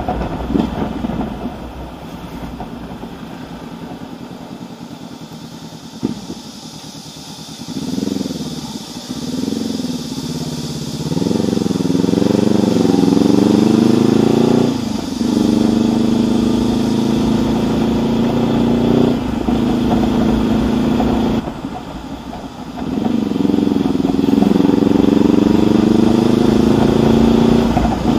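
2019 Honda CB500X's parallel-twin engine through a Mivv Suono aftermarket exhaust, heard from the rider's seat while riding. It is low at first, with a couple of short revs about eight seconds in. Then it pulls away with the pitch climbing through the gears, eases off briefly near the end and accelerates again.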